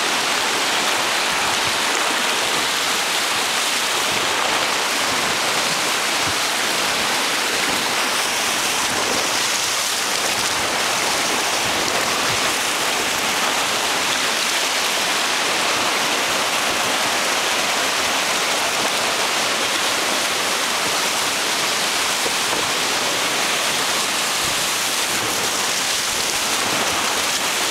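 Whitewater rapids rushing and splashing close by, heard from a raft running through them: a steady, unbroken rush of water.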